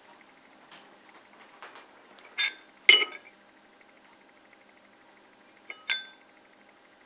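Glass bowls and a steel plate clinking as they are handled on the table. There are two ringing clinks close together a little after two seconds in, the second louder, and another one near the end.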